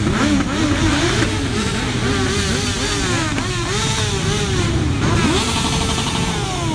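A procession of motorcycles, sport bikes and cruisers, riding slowly past one after another. Several engines rev up and ease off in overlapping waves, pitch rising and falling again and again.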